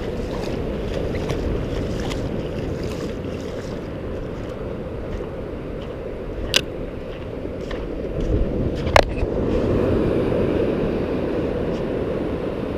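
Ocean surf washing, with wind rushing on the microphone: a loud, steady rush. Two short sharp clicks cut through it, about six and nine seconds in.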